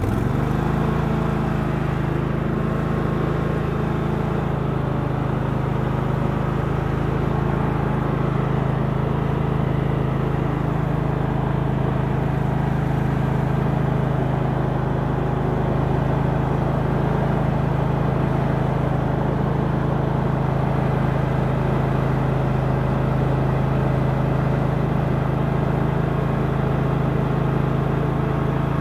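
Murray riding lawn tractor engine running steadily as the tractor drives along. The engine note rises sharply about half a second in as the throttle lever on the dash is pushed up, then holds at that speed.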